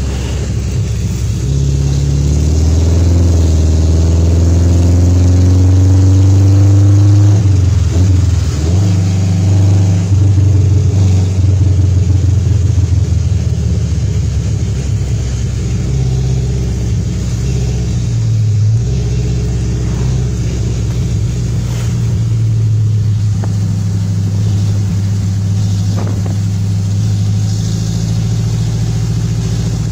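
Toyota 4K four-cylinder engine of a short owner-type jeep running on the road, pulling harder with rising pitch over the first several seconds, easing off briefly about eight seconds in and again just past the middle, then cruising steadily.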